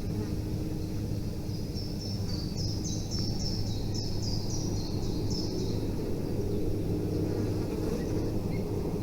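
Small bird chirping: a quick run of about ten short, high chirps, each sliding down in pitch, from about two seconds in to about five and a half seconds, over a steady low rumble.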